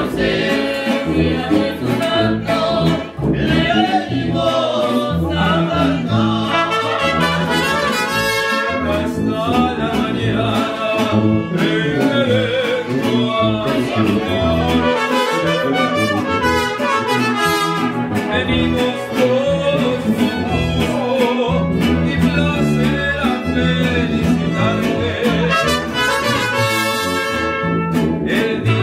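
Music led by trumpets and other brass instruments, playing without a break.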